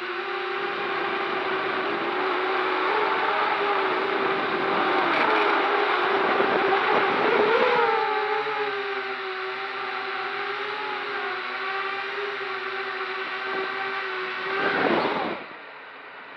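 MJX Bugs 3 quadcopter's brushless motors and propellers running with a steady whine and rush of air as it descends. The pitch wavers and rises briefly about halfway. Near the end the whine swells, then cuts off suddenly as the motors stop with the quad on the ground.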